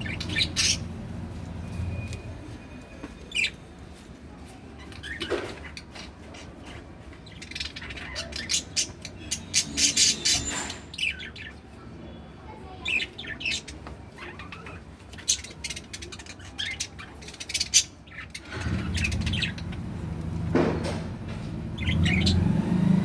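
Pet budgie chirping and squawking in quick clusters of short, sharp high calls. A low rumble starts about three-quarters of the way in and grows louder near the end.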